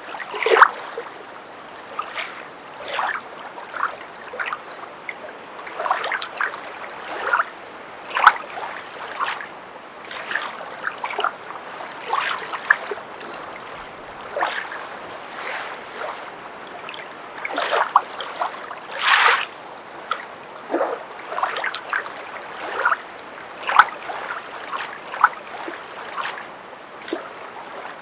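Footsteps wading through water: irregular splashes roughly once a second, some louder than others.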